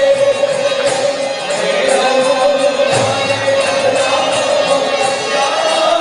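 Devotional kirtan music: chanting over a held tone, with a struck percussion stroke about once a second.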